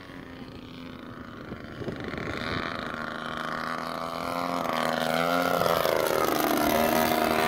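RC model airplane's engine and propeller growing louder as it makes a fast low pass, the pitch dropping as it goes by about six seconds in.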